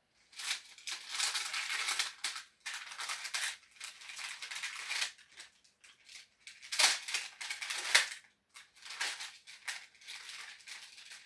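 Packaging rustling and crinkling as it is handled and pulled off a newly unboxed bass guitar, in irregular bursts that are loudest about 7 and 8 seconds in.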